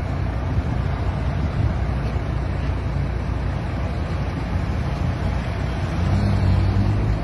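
Idling vehicle engines in stopped highway traffic: a steady low hum that grows louder about six seconds in.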